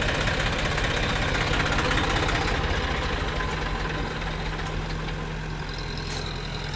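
Eicher tractor's diesel engine idling steadily, with a low, even knocking beat.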